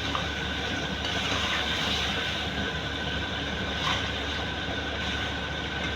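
Mutton karahi frying in ghee in a wok during the bhunai, a steady sizzle with a light tick about four seconds in.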